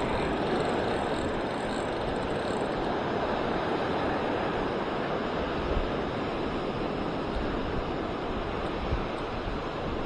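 Steady wash of surf breaking along the beach, with wind rumbling on the microphone.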